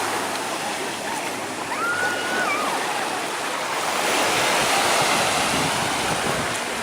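Sea surf washing onto the beach, a steady rushing that eases and then swells again. A brief faint high-pitched call cuts through about two seconds in.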